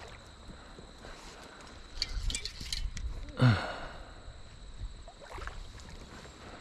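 A hooked carp splashing in shallow water as it is played in on a fly rod, in irregular bursts about two seconds in and again near five seconds. A short, loud, falling voice sound comes about three and a half seconds in.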